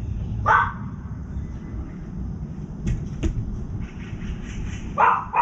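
A dog barking: one bark about half a second in and two quick barks near the end, over a steady low rumble. Two sharp taps come in between.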